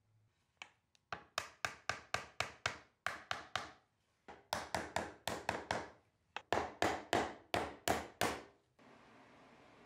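Metal-headed hammer knocking the glued dovetail joints of an oak box home, wood struck directly. Runs of quick sharp taps, about four a second, with short pauses between runs, stopping shortly before the end.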